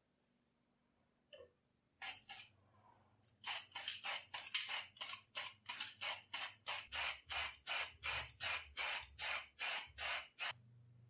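Aerosol spray can of white primer hissing in short, rapid bursts. After two short puffs about two seconds in, the bursts come at about three to four a second.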